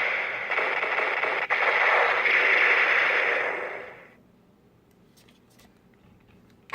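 CSM Kamen Rider Den-O belt toy playing a finishing-move sound effect through its small speaker: a loud hissing, crackling noise that fades away about four seconds in.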